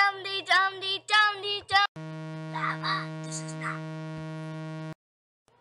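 A child sings short repeated syllables. About two seconds in, a steady buzzing tone takes over for about three seconds, with a faint voice over it, and cuts off suddenly.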